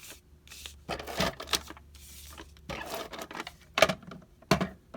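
Paper-craft handling sounds: adhesive being applied to a cardstock piece and the paper being handled, heard as several short scratchy rasps. The two sharpest and loudest come near the end.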